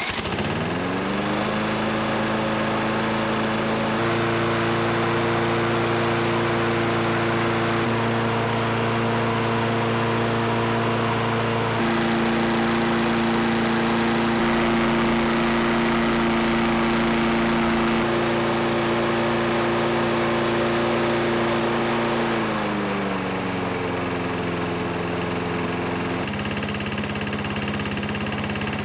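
A lawn mower's small single-cylinder engine, with soybean vegetable oil in its crankcase, starts and quickly rises to a steady running speed. A little over twenty seconds in, its pitch sinks as it slows under a heavy load from the engine brake, and it then runs steadily at the lower speed.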